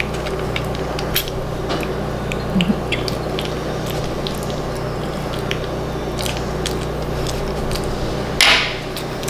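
Small clicks and taps of a plastic syringe and mixing container being handled while warm water is measured out, over a steady background hum. Near the end comes a short hissing squirt of liquid, the loudest sound.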